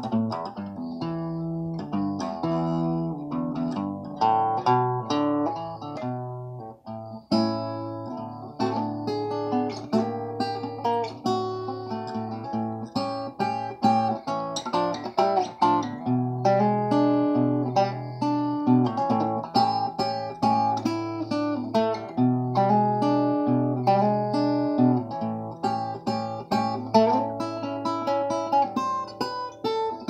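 Resonator guitar fingerpicked in a blues, low bass notes under picked treble notes.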